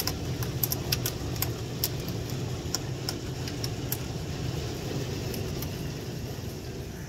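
Heavy downpour of rain mixed with hail: a steady rush of rain under sharp ticks of hailstones striking. The ticks come thick in the first few seconds and thin out toward the end.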